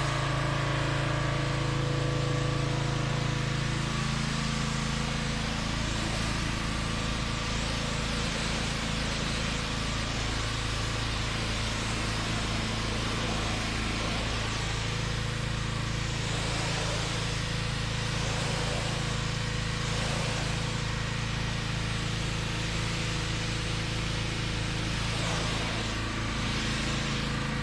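An engine running at a steady speed, with an even hum that holds pitch throughout.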